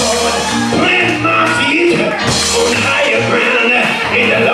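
Live gospel music: a man singing into a handheld microphone over keyboard, bass and drums, with cymbal crashes about two seconds in and near the end.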